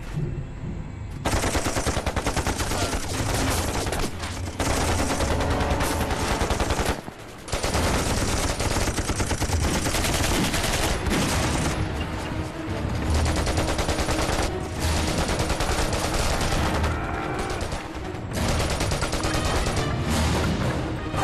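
Sustained staged gunfire, dominated by rapid machine-gun bursts, almost unbroken after the first second. It drops out briefly about 7 seconds in and again around 15 and 18 seconds, over a film score.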